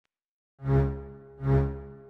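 Background music starting about half a second in: sustained chords that swell and fade twice.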